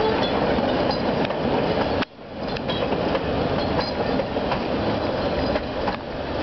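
Puffing Billy's narrow-gauge wooden passenger carriages rolling past over a timber trestle bridge: a steady rumble of wheels on rail with scattered clicks. The sound cuts out abruptly about two seconds in and comes back within a second.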